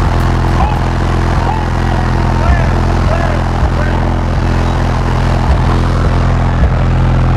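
An engine running steadily with an even, unchanging low drone, with people's voices calling out over it.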